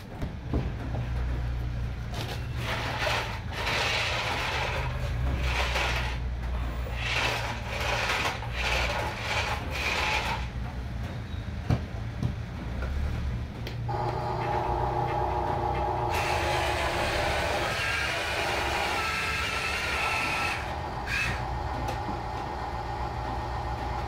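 Electric motors and plastic gearboxes of radio-controlled toy construction vehicles whirring, in short repeated bursts at first, then a steadier whine with several pitches from about 14 seconds in as a toy dump truck drives.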